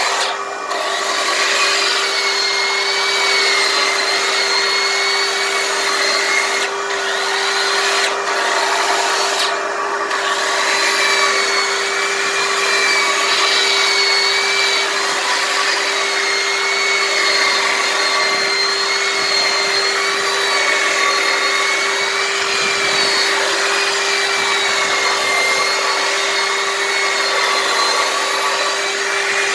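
Makita electric drum sander running continuously against cedar logs, its whine wavering slightly as the load changes, over the steady hum of a shop vacuum pulling the dust off through a hose. The sanding sound dips briefly a few times in the first ten seconds.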